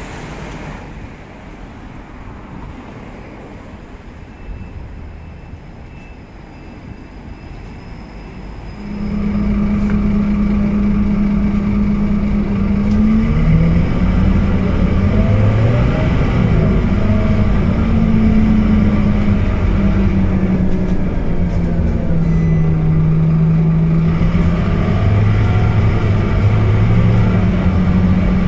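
Quieter street traffic at first. About nine seconds in, a Scania K230UB bus's five-cylinder diesel engine takes over, heard loud from inside the passenger cabin. Its pitch steps up and down several times as the bus drives and changes gear.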